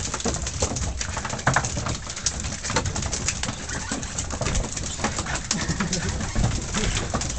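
Fishing boat's engine running with a low steady rumble, with scattered short clicks and knocks through it.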